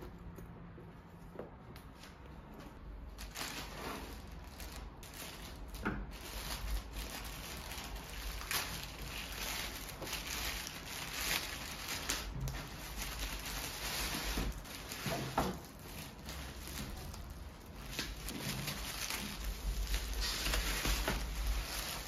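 Plastic courier mailer bag crinkling and rustling irregularly, with short sharp crackles, as a backpack is pulled out of it. It is quieter for the first few seconds, then busier.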